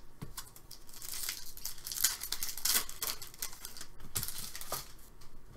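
A hockey card pack wrapper being torn open and crinkled by hand. About four seconds of crackly tearing and rustling, with a few sharp snaps.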